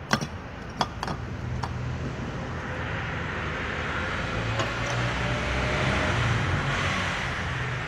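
A few sharp clicks within the first two seconds, then a steady motor-vehicle rumble that slowly grows louder and eases slightly near the end.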